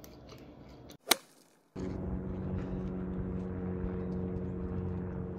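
A single sharp swish about a second in, then from about two seconds a steady drone of an airplane flying overhead, with several steady low tones.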